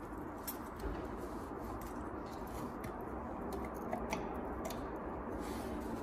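Hands handling stiff insulated range wires and a plastic 50 amp range receptacle: scattered faint clicks and rustling.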